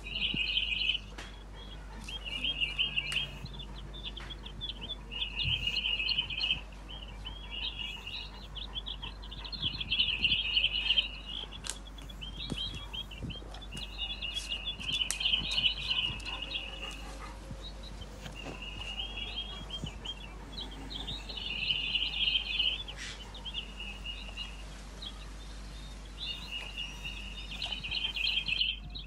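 A jay fledgling calling in repeated bouts of rapid, high calls, each bout lasting a second or two, with short pauses between.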